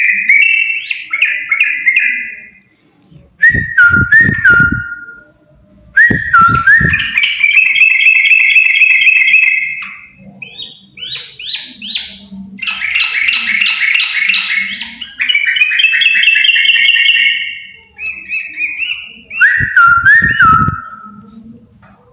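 A pair of yellow-vented bulbuls singing in loud, bubbly whistled phrases, one burst after another with short pauses between. Short bouts of low thumping come with the song about four, seven and twenty seconds in.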